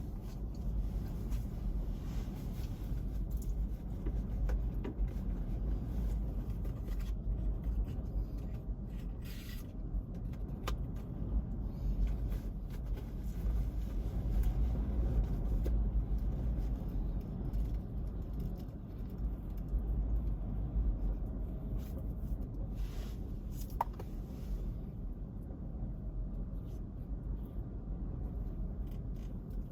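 Steady low rumble of typhoon-swell surf and wind on the microphone, with a few faint clicks.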